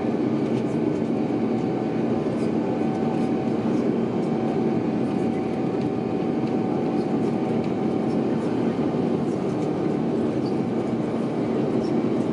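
Steady airliner cabin noise heard from inside the cabin: a constant rumble of jet engines and airflow, with a steady hum on top.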